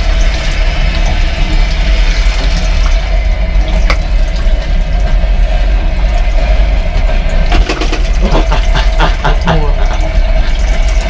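Tap water running into a small stainless-steel washroom sink as hands splash and rinse hair, over the steady low rumble and hum of a moving train. A quick run of clatters comes about eight seconds in.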